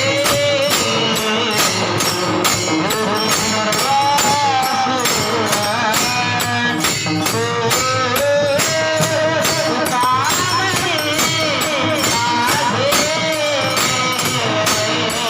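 Kirtan devotional music: a voice sung high and sustained over a steady beat of jingling percussion.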